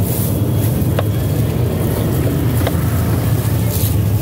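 Steady low drone of a boat engine running, with a few sharp knocks of a knife chopping fish on a wooden block.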